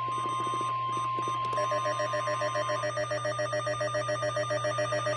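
Emergency alert tones. A steady single-pitch warning tone, as sounded before a weather radio alert, holds until nearly three seconds in. From about a second and a half in, a harsh, fast-pulsing ringing alarm starts over it and carries on, beating several times a second.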